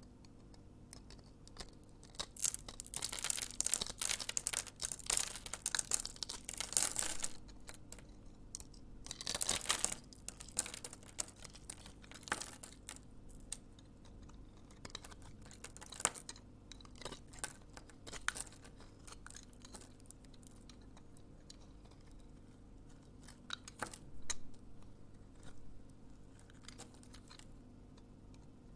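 A knife cutting through a bar of dry soap into cubes, with crisp crackling crunches in two long runs in the first ten seconds. After that come scattered sharp clicks and light taps.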